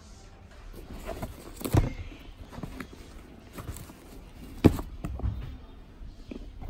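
Hands handling a sneaker close to the microphone: irregular rustles and knocks, with two louder thumps, one about two seconds in and one near five seconds.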